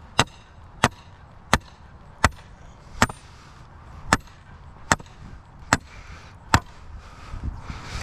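A hammer striking steel again and again at a steady pace, about one blow every 0.7 seconds, nine in all. Each blow has a short metallic ring.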